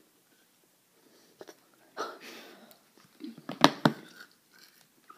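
A person biting into hard food close to the microphone: two sharp, loud crunching bites about three and a half seconds in, after a short breathy rustle.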